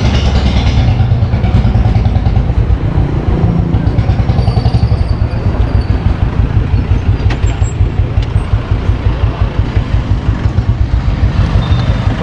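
Motorcycle engine running as the bike pulls away and rides along a street, heard close from a camera on the bike, with a low, rapid, even pulsing beat.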